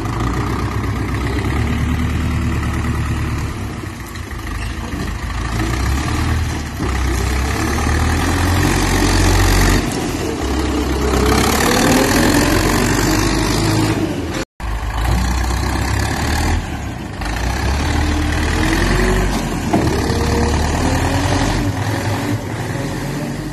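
An Ursus C-4011 tractor's two-cylinder diesel engine running hard as the tractor is driven about on snow, its note rising and falling again and again as the throttle is opened and eased. The sound cuts out for an instant just past halfway.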